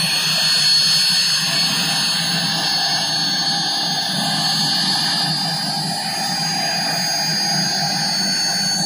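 Army HAL Cheetah helicopter running on the ground with its rotor turning: a steady high turbine whine over a steady low rotor and engine rumble.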